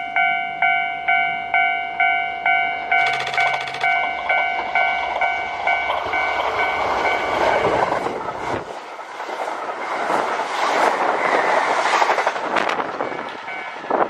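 Japanese level-crossing warning bell ringing about twice a second while a Kintetsu limited express electric train approaches and rushes past over the rails. The train's noise builds and swamps the bell about halfway through, then dies away near the end.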